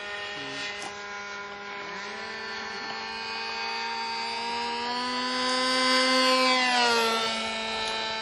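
Radio-control model airplane flying past, its engine droning at a steady pitch and growing louder. About seven seconds in, the pitch drops as it passes by.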